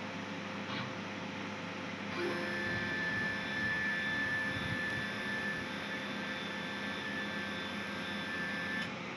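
Mini CNC machine's spindle motor running with a steady high whine that starts about two seconds in and cuts off near the end, over a low steady hum.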